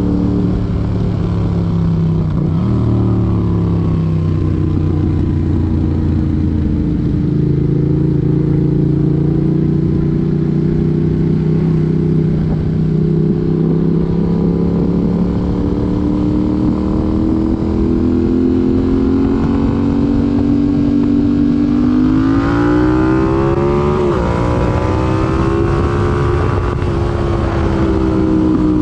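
Yamaha MT-07's 689 cc parallel-twin, in its 35 kW restricted form, running through an IXIL IXRACE MK2 aftermarket exhaust while riding. The engine note holds fairly steady with slow drifts in pitch. About three-quarters of the way in it climbs under throttle, dips sharply for a moment, climbs again and then eases off.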